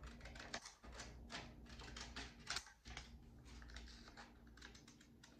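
Scissors snipping through a printed paper shipping label: a run of quick, irregular cuts.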